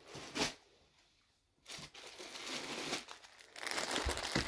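Clear plastic garment bag crinkling as a bagged piece of clothing is lifted out of a box and handled. It comes in short spells, starting up again after a hush of about a second near the start.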